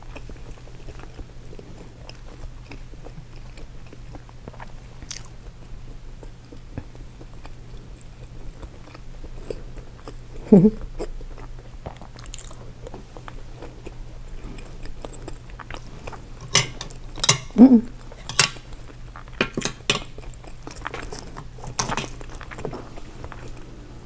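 Close-up eating of a seafood boil: chewing and biting, with a run of sharp crunchy clicks in the second half.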